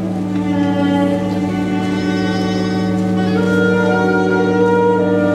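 Instrumental music with a melody of long held notes over a steady low note, accompanying a stage dance.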